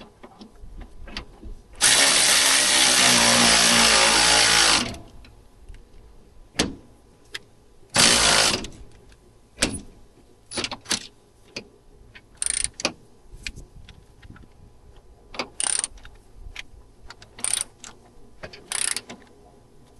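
A power tool runs loudly for about three seconds, then briefly again a few seconds later, during work on a car's steering rack. Scattered metallic clicks and short rattles follow.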